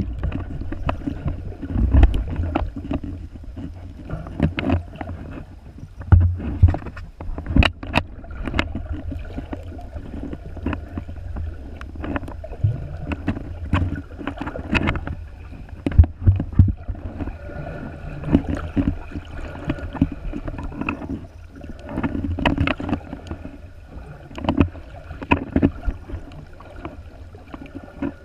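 Muffled underwater noise picked up by a camera held below the surface: a steady low rumble of moving water with irregular sharp clicks and knocks scattered throughout.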